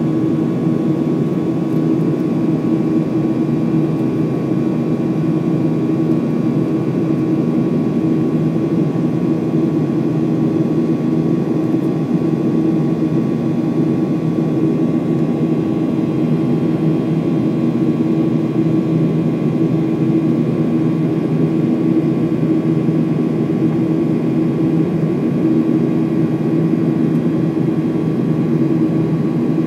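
Boeing 737-900 heard inside the passenger cabin beside the wing during climb-out: the CFM56-7B turbofans and rushing airflow make a steady drone with a few held tones in it.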